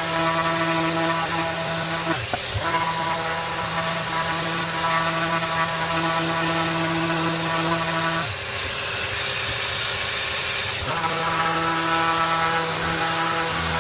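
Maxxt electric sander running on a wooden board with a steady motor hum and hiss. The hum drops out briefly about two seconds in and again for a couple of seconds past the middle, while the hiss carries on.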